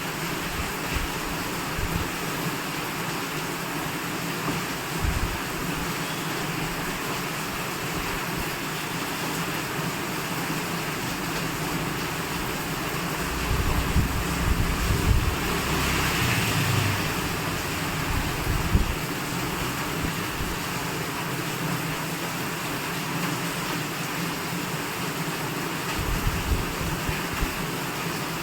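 Wind buffeting the microphone over a steady hiss, with the rumbling gusts strongest about halfway through and again near the end.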